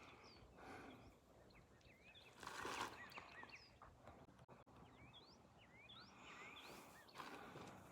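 Faint birds chirping: many short, thin whistled notes rising and falling in pitch. There is a soft noisy crunch about two and a half seconds in and another near the end.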